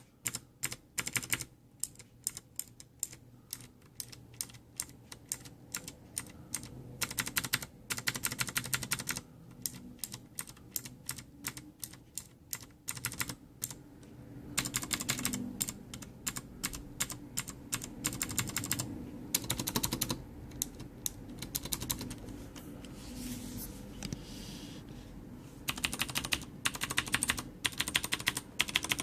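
Ducky Zero Zone mechanical keyboard with clicky Cherry MX Blue switches, keys clicking in quick runs with short pauses between them. A low rumble sits under the clicks from about halfway on.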